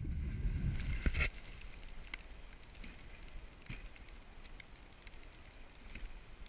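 Dog sled running over snow behind its team. A heavy low rumble lasts about the first second, then gives way to a quieter steady hiss scattered with small clicks and crackles.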